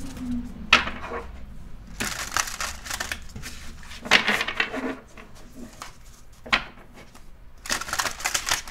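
A deck of tarot cards being shuffled by hand. Several bursts of rapid fluttering and snapping of card edges, with a few sharp single clicks between them.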